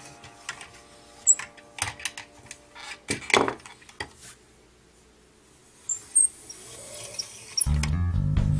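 Hard plastic toy pieces being handled: a scatter of sharp clicks and light clattering knocks. Near the end, background music with a heavy beat comes in.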